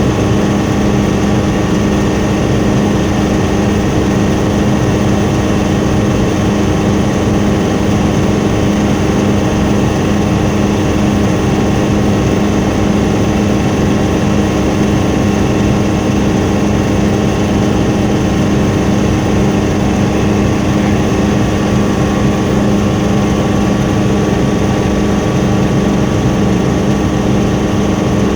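Helicopter in flight, heard from inside the cabin: a loud, steady drone of engine, rotor and gearbox, with several unchanging tones in it.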